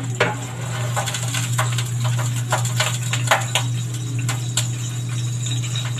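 A washing machine running with a steady low hum, while the oil heating in a wok gives scattered small crackles and pops.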